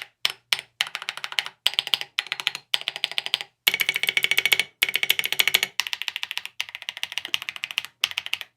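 Rapid typing on a mechanical keyboard fitted with Akko CS Silver linear switches under SA spherical keycaps: quick runs of crisp key clicks in several bursts, with short pauses between them.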